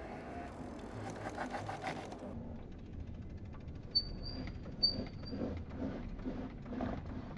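E-bike braking on asphalt with its ABS working the hydraulic disc brakes: rapid, even clicking in two spells, with two short high brake squeals about four and five seconds in.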